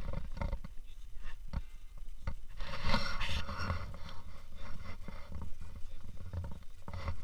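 Rubbing and handling noise on a handheld camera's microphone over a steady low rumble, with scattered knocks and clicks and a louder rush of noise about three seconds in.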